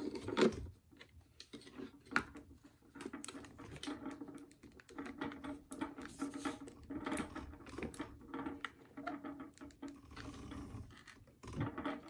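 Irregular plastic clicks, knocks and rubbing from fitting a RevAir hair dryer's corrugated hose onto its plastic base unit and lining up the connectors; the sharpest knocks come about half a second and about two seconds in.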